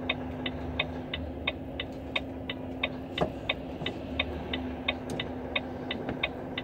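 Turn-signal indicator ticking in a Volvo truck's cab, an even click about three times a second, over a steady low engine hum.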